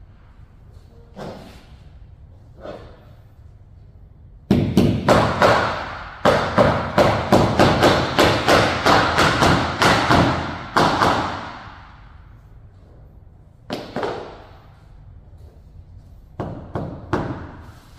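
A hammer striking again and again, fixing a rubber edge strip down along the floor. First come two light taps, then a run of about three blows a second for several seconds, a single blow, and another quick run near the end.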